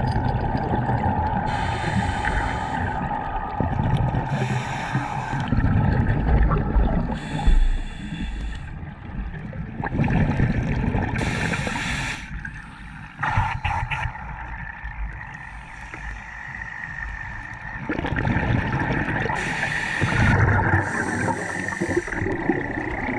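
Scuba breathing heard underwater: short hisses of a diver's regulator every few seconds between low, rumbling bubbles of exhaled air. A faint steady whine runs underneath.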